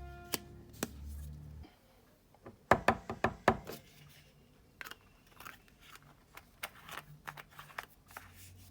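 Small objects being handled: a quick run of sharp clicks and knocks about three seconds in, then scattered lighter taps and crinkles. A low hum stops about two seconds in.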